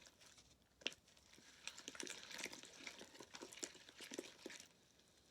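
Sticky, still under-activated slime being worked by hand, giving wet crackling and squishing as it pulls off the fingers. One sharp click about a second in, then a dense run of sticky crackles for about three seconds.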